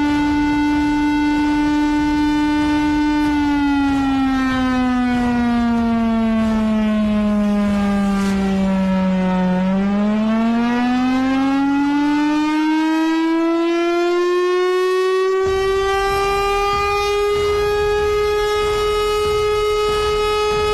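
Air-raid warning siren wailing, the war-alert signal: one loud tone holds, slides slowly down over about six seconds, then climbs back to a higher pitch about halfway through and holds there.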